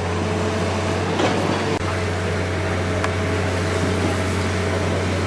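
An engine running steadily, a low even drone with a few faint steady tones above it and a wash of noise.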